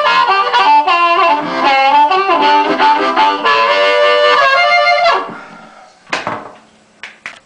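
Seydel 1847 harmonica in C played through a microphone with no bicycle-tube rubber fitted, into a VHT 6-watt amp with a 10-inch speaker: an amplified phrase of notes and chords that stops about five seconds in. Three short knocks follow as the mic and harmonica are handled.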